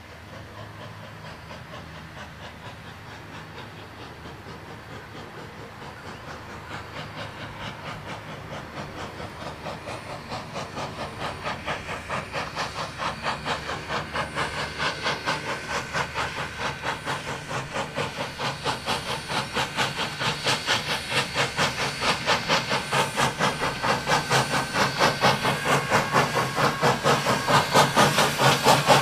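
Steam locomotive FWWRR 2248 chuffing uphill under load, a quick, even rhythm of exhaust beats with steam hiss. It starts faint and grows steadily louder as it nears.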